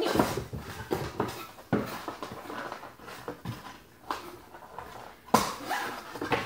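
Cardboard Loot Crate box being handled and turned inside out: flaps rustling, scraping and knocking in an irregular run, with the sharpest knock about five seconds in.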